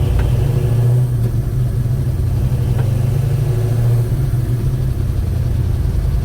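Chevrolet 307 small-block V8 running steadily while driving, very loud, with a diesel-like valve-train clatter. The noise comes from mismatched valve springs and retainers.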